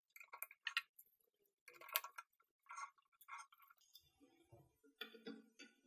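Scattered light clicks and taps of small metal and plastic parts as a film spool is fitted onto the arm of a Pathescope Ace 9.5 mm projector, the loudest about two seconds in, followed by soft rustling from the film being handled.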